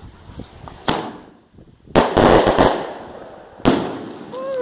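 Aerial firework shells going off: a sharp launch bang about a second in, a loud burst with a brief spell of crackling at about two seconds, and another bang a little later that dies away. Near the end comes a short falling tone.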